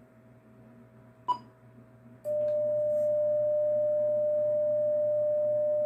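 Icom IC-775DSP transceiver: a short key beep with a click about a second in, then a steady single tone, the CW sidetone, that starts about two seconds in and holds. The rig is sending a carrier into a dummy load while its internal antenna tuner tries and fails to find a match.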